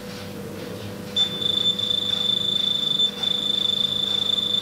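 Casio IT-300 barcode terminal sounding its read-confirmation beep over and over as it rescans a single barcode about 27 times a second, so fast that the beeps merge into one high, slightly fluttering tone. It starts about a second in and breaks off briefly once. Each beep marks a successful read; the run totals 108 reads in under four seconds.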